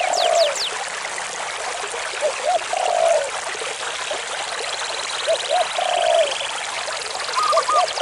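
Mountain stream water rushing and trickling over rocks. Over it, short low bird calls repeat about every three seconds, and a faint high trill sounds midway.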